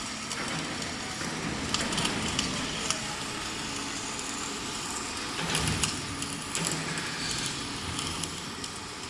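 Flux-cored MIG welding arc of an automatic orbital pipe welder, crackling steadily with irregular sharp pops.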